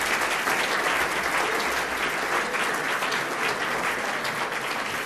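Audience applause: many hands clapping in a steady patter that eases off a little near the end.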